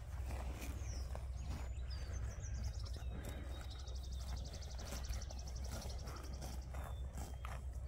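Hereford steers grazing at close range: repeated crisp tearing and munching of fresh grass.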